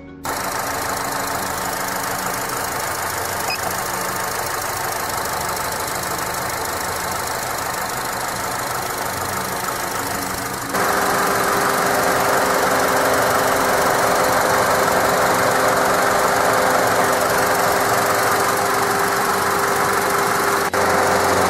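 Honda CR-V engine idling with the hood open, a steady mechanical hum and whir. About ten and a half seconds in the sound steps up louder and fuller as the air conditioning and other electrical loads are switched on for a maximum-load charging test.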